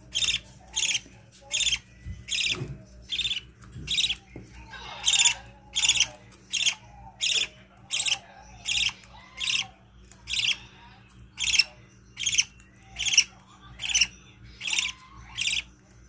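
Budgerigar chick begging to be fed: a short, harsh, high call repeated steadily about every three quarters of a second as the mother feeds it.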